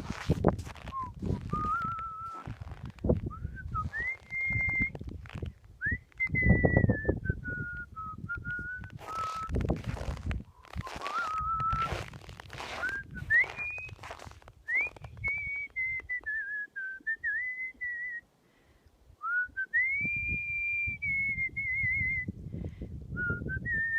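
A person whistling a melody by mouth, a clear single tone moving in phrases with slides and trills, with a short pause about three-quarters of the way through. Intermittent noisy thumps sound underneath.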